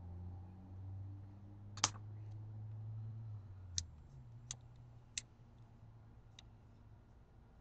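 A handful of sharp clicks and taps at uneven intervals, the loudest about two seconds in, over a low hum that fades out about four seconds in.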